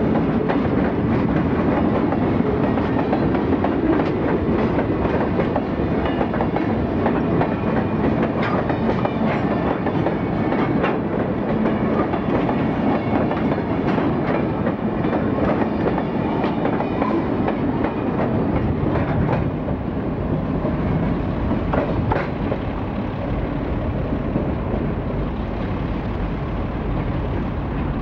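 Freight train of steel gondola cars rolling past close by: a steady rumble of wheels on rail, with scattered sharp clicks as wheels pass over rail joints. The sound eases a little in the last third.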